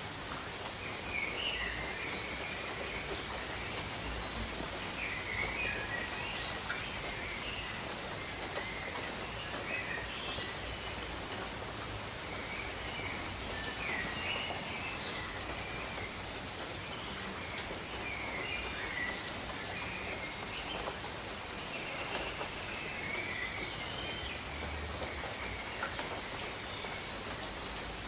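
Steady gentle rain falling, with scattered raindrop ticks, while small birds chirp in short phrases every second or two.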